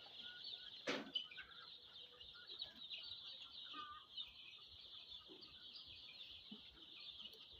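Faint, steady chirping of a flock of young ISA Brown pullets, with a single short knock about a second in.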